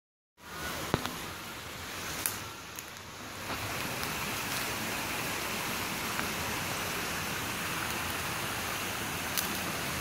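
Steady rush of a waterfall, growing fuller about three and a half seconds in, with a few sharp snaps of footsteps on sticks and dry leaves.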